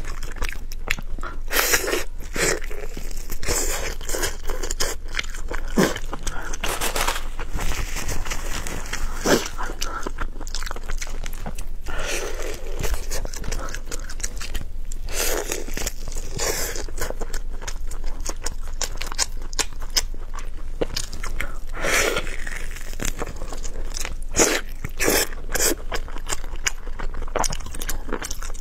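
A person eating braised pork knuckle close to the microphone: irregular bites and chewing with many small mouth clicks.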